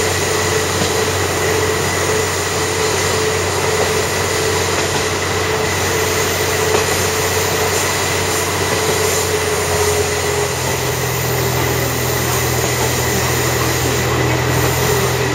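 Interior sound of a diesel railcar working uphill on a steep mountain line: a steady engine drone with constant low tones under running noise. A deeper engine note joins about ten seconds in.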